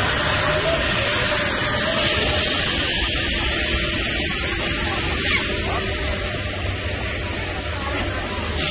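Jet aircraft engine noise: a steady, loud rush that slowly fades away as the aircraft draws off.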